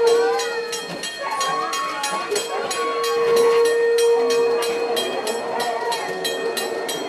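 A train running along the rails with a fast, even clatter, about four or five beats a second. A steady tone sounds over it at times.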